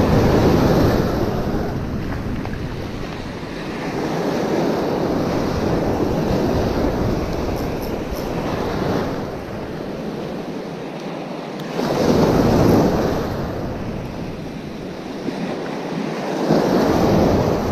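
Ocean surf breaking and washing up the beach in swells a few seconds apart, loudest near the start, about twelve seconds in and near the end, with wind rumbling on the microphone.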